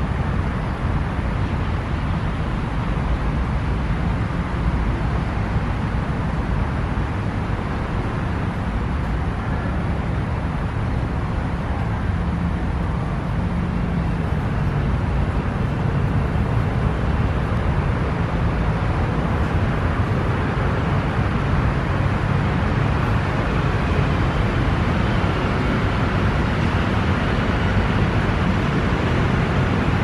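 Steady noise of city road traffic, a constant wash with no distinct events, growing slightly louder in the second half.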